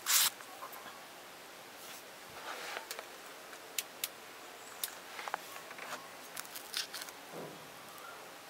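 Handling noise from a handheld recording device being moved about: a loud short rustling scrape right at the start, then scattered small clicks and soft rustles.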